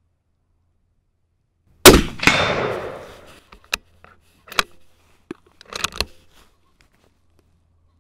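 A single rifle shot from an L96A1 bolt-action sniper rifle in 7.62×51mm NATO, about two seconds in, its report echoing away over the next second and a half. Several sharp metallic clicks follow as the bolt is worked to eject the case and chamber the next round.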